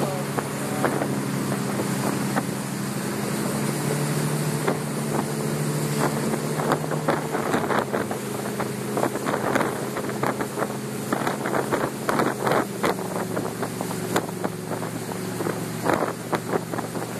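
Towing motorboat's engine running steadily at speed, with the rush of its wake and wind on the microphone. The engine note shifts slightly about two-thirds of the way through, and brief crackles of wind or spray come and go in the second half.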